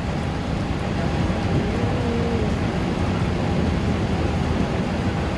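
Steady low rumble and rush on the open deck of a moving ferry: wind on the microphone over the ship's engine and the water along the hull.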